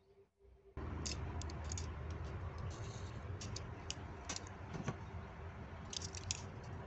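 Steel ruler being slid and repositioned over a paper sheet: scattered scrapes and light clicks over a steady hiss that comes in suddenly about a second in.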